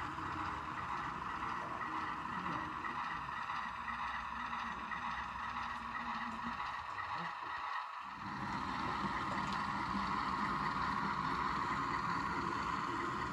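Model diesel locomotives running as a pair, their onboard sound playing a steady diesel engine drone. The sound drops out briefly about eight seconds in, then picks up a little louder.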